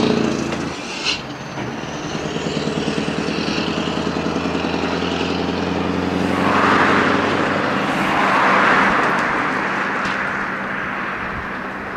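Scania R500 V8 diesel truck engine running through straight pipes, its steady pulsing note swelling louder twice about seven and nine seconds in, then fading as the truck moves off.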